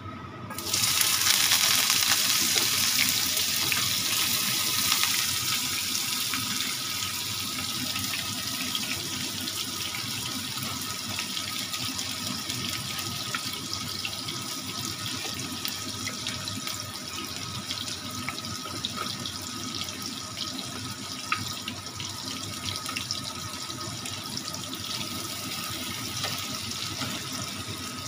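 Chopped onions dropped into hot oil in a frying pan, sizzling. The sizzle starts suddenly about a second in, is loudest for the first few seconds, then settles to a steady sizzle with a few light clicks from the spatula.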